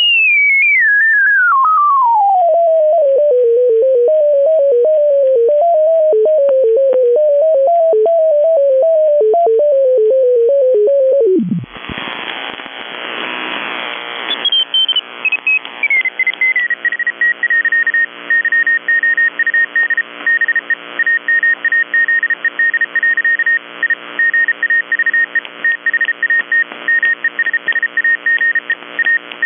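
Radio receiver audio being tuned: a single whistling tone sweeps down in pitch and wavers, then drops away into a short burst of hiss. Another tone then slides down and settles into a steady whistle that pulses rapidly on and off over a bed of steady tones.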